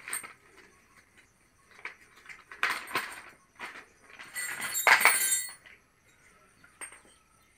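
Plastic packaging and paper crinkling and rustling as a brush cutter's small parts are unwrapped by hand, in two bouts, the louder one about five seconds in.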